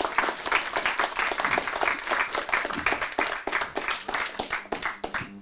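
Audience applauding: a dense patter of many hands clapping that thins out and fades near the end.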